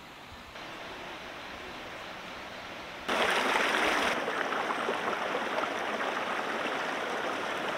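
Small rocky stream rushing over stones, a steady wash of water that gets suddenly louder about three seconds in and eases back a little a second later.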